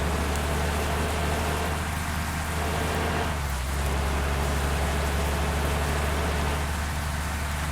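Heavy rain falling steadily, with a bus engine's low steady hum underneath.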